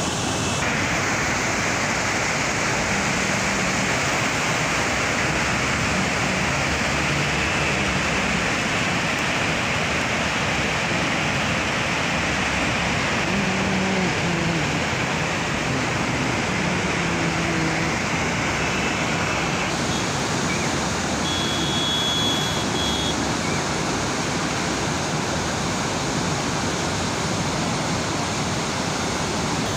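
Steady rushing roar of a swollen, fast-flowing mountain river running high and white after heavy rainfall.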